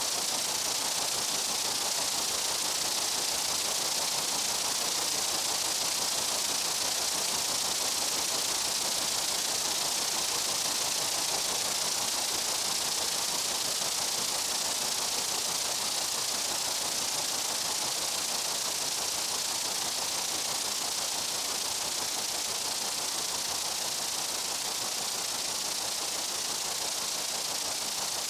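Steady, dense insect chorus of a summer meadow: an even high hiss with no pulses, pauses or changes.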